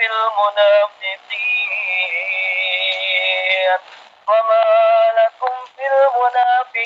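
A man reciting the Qur'an in melodic tilawah style. He holds one long ornamented note for about two and a half seconds, pauses briefly for breath about four seconds in, then goes on in shorter phrases.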